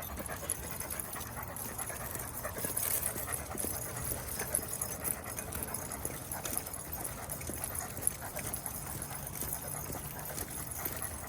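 Dogs panting while they walk, with many small clicks of footsteps throughout.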